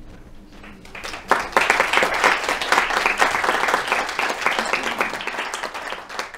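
Audience applauding: many hands clapping start suddenly about a second in, hold steady, and thin out toward the end.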